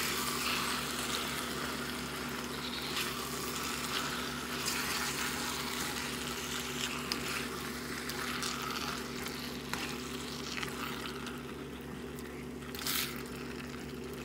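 Squid sizzling in hot oil with tomatoes and onions in a wok, stirred with a spatula that knocks and scrapes against the pan now and then. The sizzle thins out toward the end.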